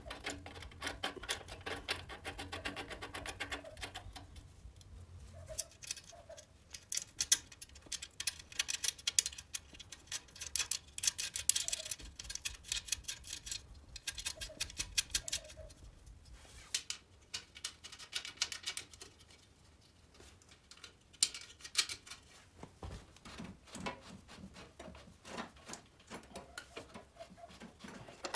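Small metal clicks and clinks of hand assembly on a Riga 12's front fork and fender: nuts and bolts being threaded and tightened, in quick runs of clicks with short pauses.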